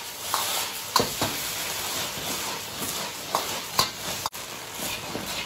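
Stir-fried battered pork strips in sauce sizzling in a wok while the wok is tossed, with a few sharp knocks of the ladle against the wok.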